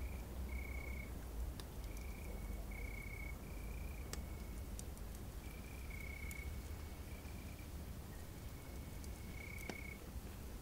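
Crickets chirping in short trills at one steady pitch, over a low rumble, with scattered faint crackles from a campfire.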